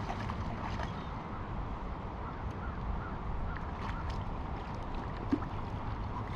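Steady rushing of flowing creek water, with a low rumble from wind on the microphone and a single small click about five seconds in.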